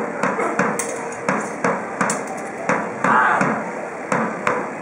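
Swords clashing in a staged fight, a quick run of sharp metallic strikes, some ringing briefly. A voice calls out about three seconds in.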